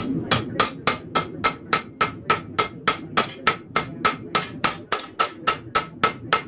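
Hand hammer forging a red-hot steel bowie knife blade on an anvil: a steady, even run of blows, about three a second, each with a short metallic ring.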